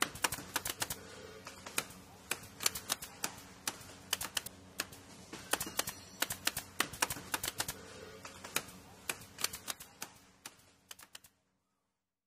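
Typewriter sound effect: rapid, uneven key clicks that stop a little over eleven seconds in.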